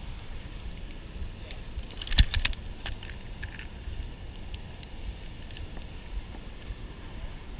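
Metallic clinks and rattles of a fish lip-gripper and the hook of a hanging scale being handled, loudest in a quick cluster about two seconds in, over a steady low rush of spillway water.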